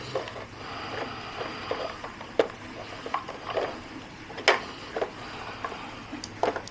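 A dog working a treat puzzle box: scattered clicks and knocks as parts of the box are nosed and pushed about, the loudest about four and a half seconds in.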